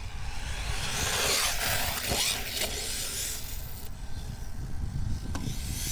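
Hosim X25 1/8-scale brushless RC truck driving after a crash, its motor and drivetrain running with tyre noise, the level swelling and easing with the throttle. The gears are audible through the drivetrain, with the differential housing broken.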